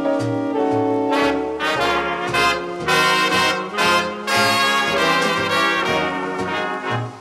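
Background jazz music led by brass instruments, with held horn notes over a plodding bass line.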